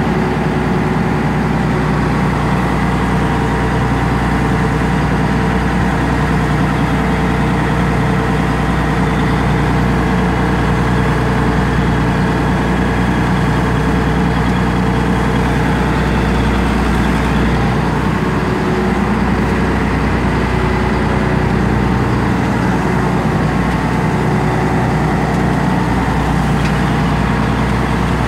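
A fishing boat's engine running steadily under way, a loud low drone with a steady hum of tones above it, mixed with the rush of the wake.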